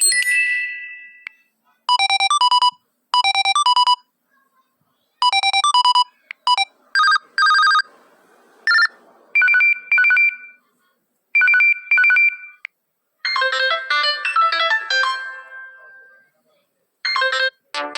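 A string of LG mobile phone ringtones played one after another: short electronic beeping ring patterns, each repeated a few times with brief silences between, changing to a different tone several times, and a short chiming melody near the end.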